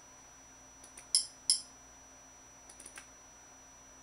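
Two sharp clicks about a third of a second apart, a little over a second in, with a few faint ticks before them and near the end: keyboard or mouse buttons being pressed to move through a media-center menu.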